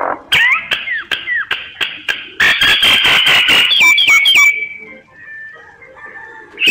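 Myna calling: a varied run of whistles and down-slurred notes, then about two seconds of fast harsh chattering, the loudest part, before softer scattered notes near the end.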